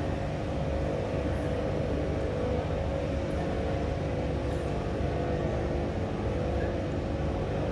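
Steady low rumble with a faint constant hum: the background room noise of a museum gallery.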